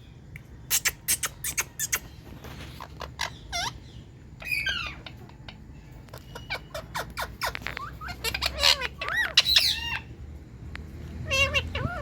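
Indian ringneck parakeet calling in bursts of short, sharp squawks and chirps, many of them quickly falling in pitch.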